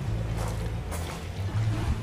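Live band music dominated by a low bass line that moves from note to note.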